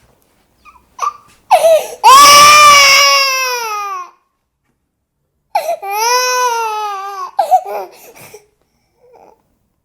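Eight-month-old baby crying: two long wails, the first the loudest and falling in pitch as it fades, the second starting about five and a half seconds in, each followed by short catches and sobs, with brief silences between.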